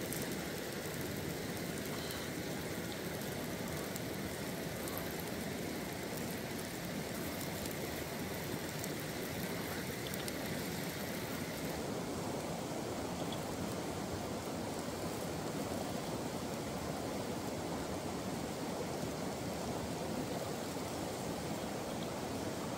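Steady rushing of water, a continuous hiss without breaks or distinct events.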